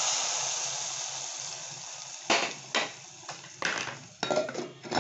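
Hot oil with spluttering mustard seeds and curry leaves poured into a pot of coconut curry, hissing loudly and dying away over about two seconds. Then a handful of sharp knocks of cookware.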